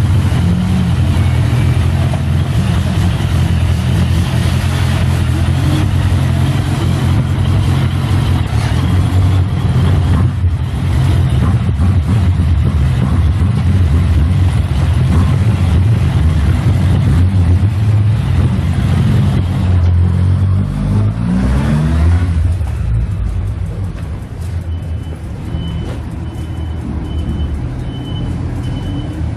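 Suzuki Bandit 1200S's four-cylinder engine idling steadily. About twenty seconds in it briefly changes pitch, as if revved, then settles back to a quieter idle. A steady high electronic beeping starts near the end.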